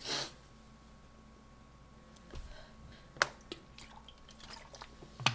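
Soda bottle being handled and drunk from: scattered small taps and clicks of the bottle and cap, two of them sharp, with faint liquid sounds. A short breathy sound comes at the very start.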